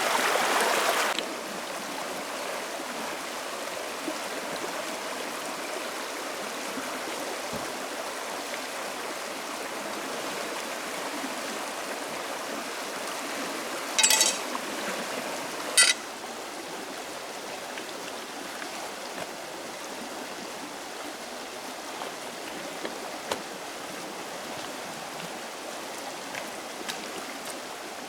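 Steady rushing of a forest stream, louder for about the first second and then settling lower. Two short, sharp knocks sound about two seconds apart around the middle.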